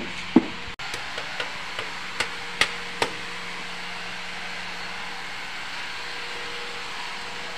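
Hammer knocks on wood: a quick, irregular run of sharp strikes that fade and stop about three seconds in, leaving a steady background hum.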